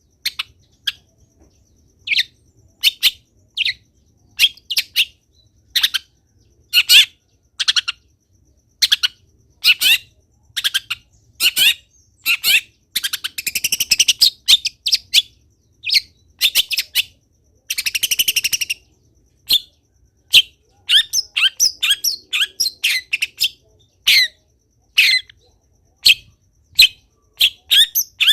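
Long-tailed shrike singing loudly in a quick string of short, sharp high notes and mimicked phrases, with two longer harsh chattering runs, about halfway through and again a little later, and a denser flurry of quick notes near the end.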